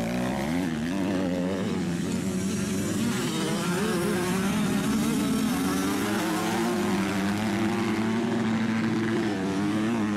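85cc two-stroke motocross bikes racing, their engines revving up and down in pitch through the throttle and gear changes.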